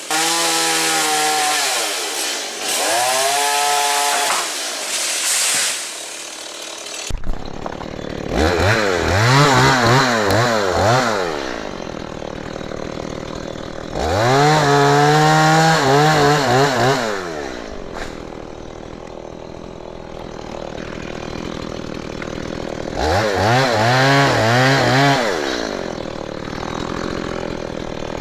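STIHL MS 170 two-stroke chainsaw repeatedly revved up to high speed for a few seconds, then let back down to a low run. There are about five bursts, as it is worked through mango wood.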